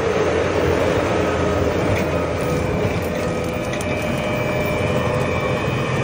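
Case TR340 compact track loader's diesel engine running steadily, with the Kubota SC4072 hydraulic brush cutter attached.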